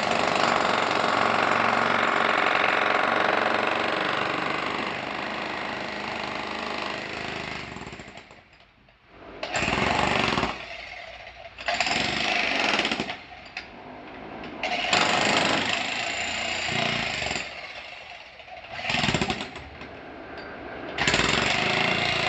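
Concrete breaker hammering: one long continuous run for about eight seconds, then it stops briefly and restarts in five shorter bursts with pauses between them.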